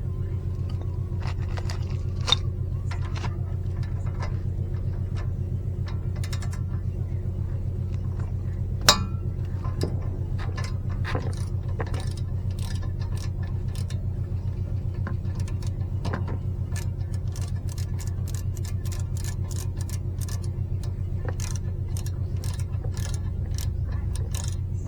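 Scattered metallic clicks and clinks of tools and brake parts being handled, with two sharper knocks about two and nine seconds in, over a steady low engine hum.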